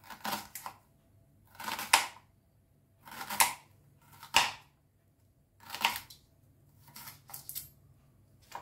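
Kitchen knife slicing red onion on a chopping board: about six or seven slow, separate cuts, each a short crunch through the onion ending in a sharp click of the blade on the board.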